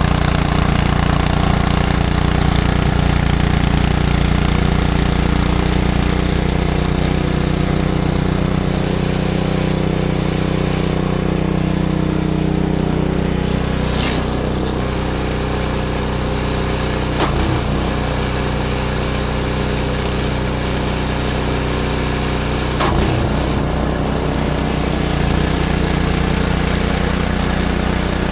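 Small gas engine of a snowblower running steadily, with three brief sharp knocks partway through.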